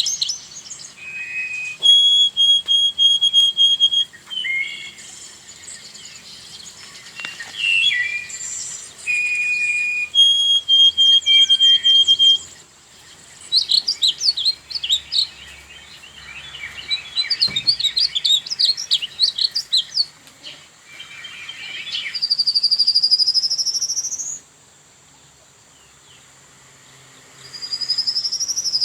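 Wild songbirds singing varied phrases: long held whistled notes, quick runs of chirps, and a rising whistle heard twice near the end, over a faint steady high-pitched tone.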